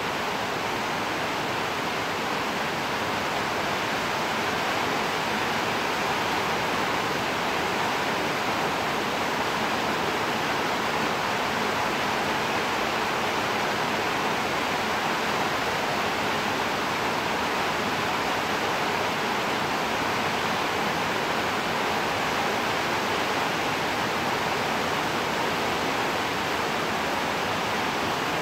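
Steady rain, an even hiss with no separate drops or breaks.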